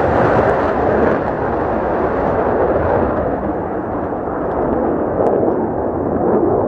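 Mitsubishi F-2 fighter's single jet engine running at high power: a loud, steady roar with a few crackles.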